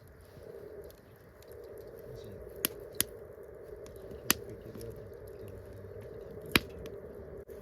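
Wood campfire crackling, with four sharp pops spaced irregularly through it.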